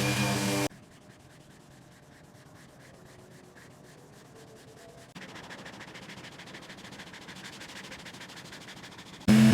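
Sanding on a car body panel: a faint, quick, even scratchy rhythm that gets a little louder about halfway through.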